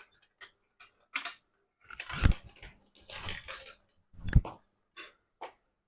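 Marbles clicking and clattering against a plastic marble run and its battery-powered lift, a string of small irregular knocks with two heavier thumps about two and four seconds in.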